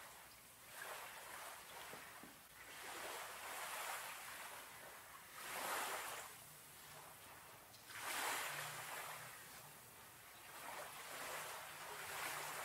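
Gentle surf: small waves washing in and drawing back, a soft hiss that swells and fades every two to three seconds, loudest about six and eight seconds in.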